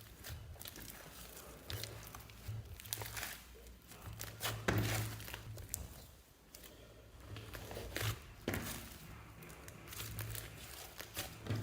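Slime being played with by hand, squeezed and stretched, giving irregular bursts of crackly noise. The loudest come about five seconds in and again near eight and a half seconds.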